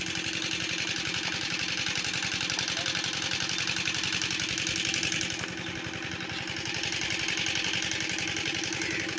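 An engine running steadily at idle, with a fast, even pulse and a steady hum; it dips a little in level about five seconds in and then comes back up.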